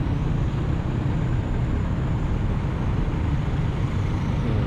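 Jeepney diesel engines and other street traffic running close by, a steady low rumble, with a faint high whine that stops near the end.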